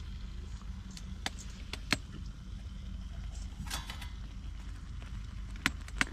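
Sharp clicks of a metal Trangia pan lid being lifted and handled, with a brief scrape midway and two louder clicks near the end; scattered crackling pops from a wood fire in the first two seconds, over a steady low rumble.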